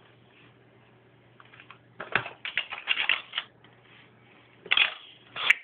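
Small clicks and rattles of earrings and other jewelry being handled in a jewelry box, in a quick run starting about two seconds in and a few more near the end.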